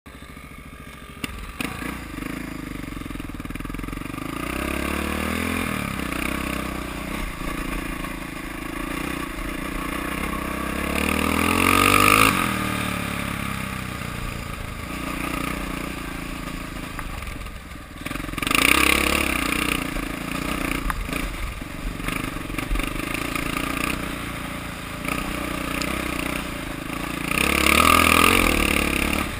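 Dirt bike engine heard from the rider's seat, accelerating and easing off again and again as it rides the trail, its pitch rising and falling. It is quieter for about the first second, and loudest about twelve seconds in and again near the end.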